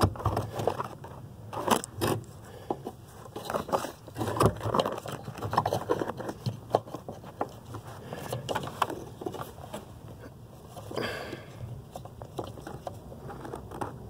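Irregular small clicks, scrapes and rustling as hands work a brake light switch and its wiring into place under a car's dashboard, with a brief swell of rustling about eleven seconds in.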